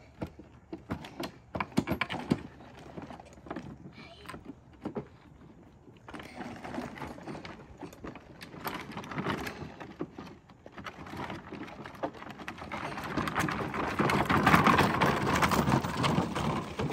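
Hard plastic wheels of children's pedal ride-on toys crunching and rattling over gravel and dirt, with scattered clicks and knocks, loudest over the last few seconds.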